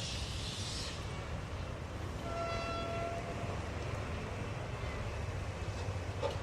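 Steam locomotive running with a low steady rumble; a hiss stops about a second in, and the whistle gives one short blast a little over two seconds in.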